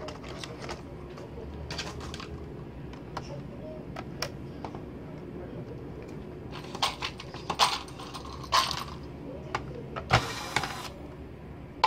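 Plastic clicks and knocks as a Compaq Presario CQ61 laptop keyboard is pried out of its bay and lifted free, the clicks coming thicker past the middle, with a short scraping rustle near the end.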